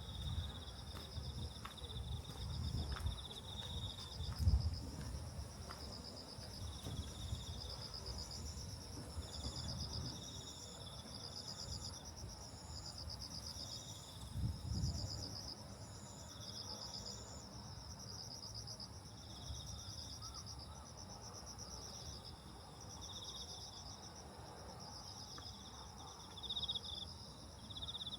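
A chorus of insects chirping in steady rhythmic pulses, several kinds layered at different pitches. A few low rumbles come through, the strongest about four and a half seconds in and again near fifteen seconds.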